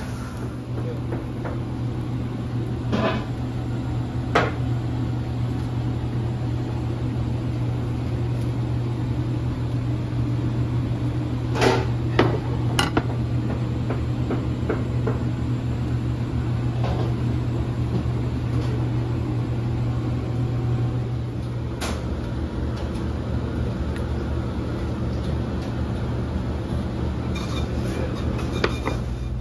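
A steady low mechanical hum, with a few sharp knocks and clatters now and then: two near the start, a cluster of three about midway, and one more later on.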